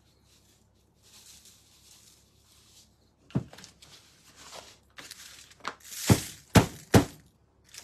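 Handling knocks and thumps from a round painted board on a paper-covered worktable: one knock about halfway through, some light rustling, then three sharp knocks in quick succession as the board is lifted.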